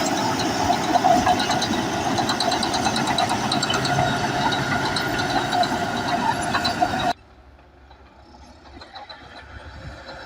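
Bulldozer's diesel engine working under load with its steel tracks clanking and squealing. The sound cuts off abruptly about seven seconds in, leaving a much quieter machine sound.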